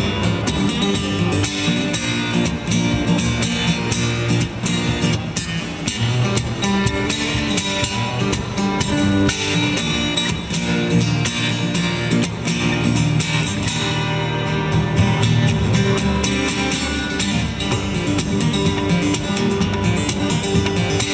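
Amplified acoustic guitar played by a street busker, strummed and picked steadily with many sharp rhythmic strikes.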